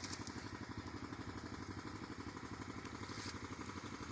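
A small engine running steadily at idle, with a fast, even beat.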